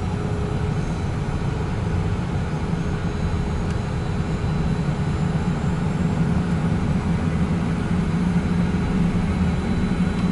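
Cessna Citation M2's twin turbofan engines running just after start, with the second engine coming up to idle after light-off. They make a steady low rumble with a faint, steady high tone, heard inside the cockpit.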